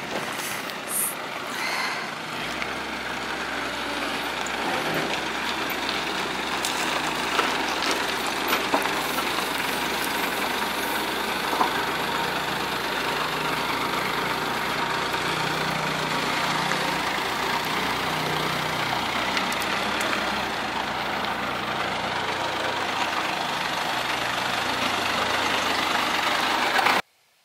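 A motor vehicle running steadily with a low engine drone, which sets in about two and a half seconds in, plus a few scattered knocks. The sound cuts off suddenly near the end.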